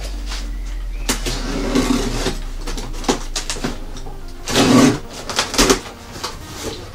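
Cardboard shipping box being opened by hand: the packing tape pulled loose and the flaps scraped and rustled open, with a few sharp clicks and the loudest scrape about four and a half seconds in.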